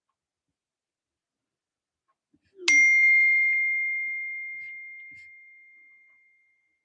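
A single bell-like ding: one clear, high ringing tone that is struck once and fades away over about four seconds.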